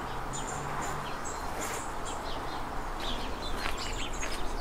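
Small birds chirping and tweeting in short high calls scattered throughout, over a steady low background rumble.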